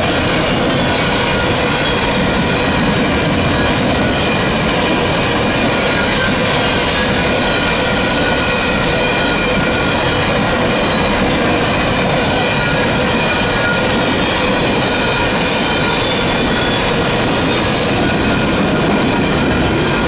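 Empty steel coal gondolas of a long freight train rolling past at steady speed. A loud, continuous rumble and clatter of wheels on the rails, with a steady high-pitched squeal from the wheels over it.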